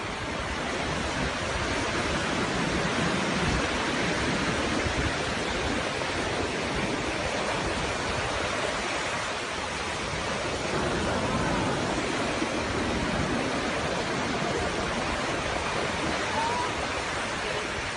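Steady rushing noise of surf breaking on a beach, with faint distant voices now and then.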